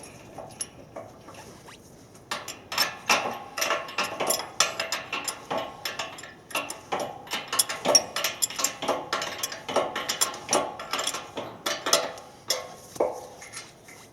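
Rapid, irregular clinking and rattling of small metal pieces being handled, starting about two seconds in after a few faint clicks.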